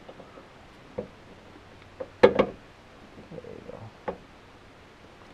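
Hand working a headlight bulb into its housing behind the headlight: a few sharp clicks and knocks, the loudest a quick pair a little past two seconds in.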